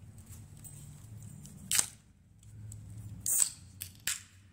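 Aluminium soda cans being opened: sharp snaps of the pull-tabs with short hisses of escaping gas, one a little under two seconds in and another at about three and a half seconds, with a further sharp click just after four seconds.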